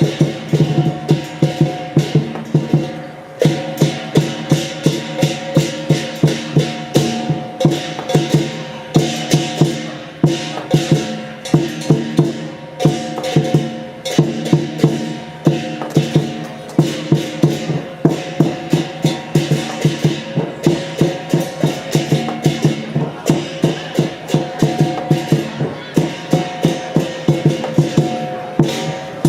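Lion dance troupe's percussion band playing: drum beats with clashing cymbals and ringing gongs in a steady rhythm, about two loud beats a second.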